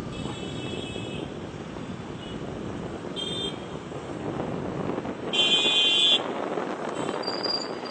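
Road traffic noise with vehicle horns: a brief honk about three seconds in and a louder, nearly one-second honk past the five-second mark.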